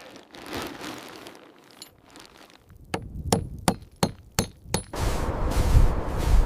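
A quick run of about seven sharp clinking knocks over roughly two seconds, some with a short metallic ring. Then a loud, steady rush of blizzard wind with a deep rumble sets in.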